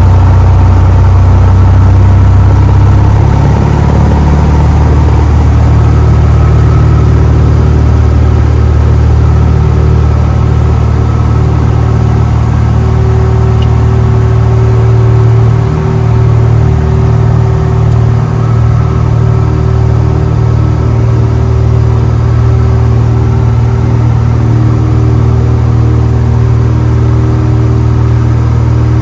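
Cessna 170A's six-cylinder Continental engine and propeller running at full takeoff power, heard from inside the cockpit: a loud, steady drone through the takeoff roll and lift-off, with a small shift in pitch about three seconds in.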